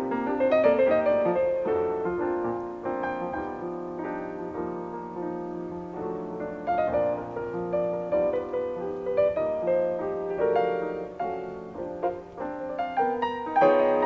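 Jazz played on acoustic pianos in a live two-piano duo concert, heard from a cassette tape of an FM broadcast: dense chords under moving melodic lines with no pause.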